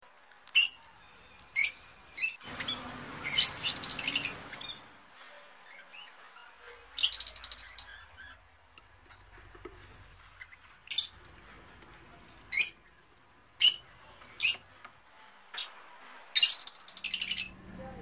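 Budgerigars calling: a dozen or so short, sharp, high chirps spaced irregularly about a second apart, with three longer bursts of rapid chattering.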